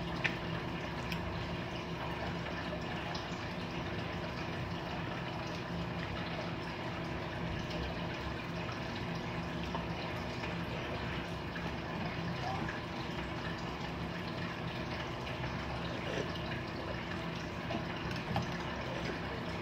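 Eating noodle soup: faint slurps and liquid sounds with a few soft clicks of chopsticks and spoon, over a steady background hum.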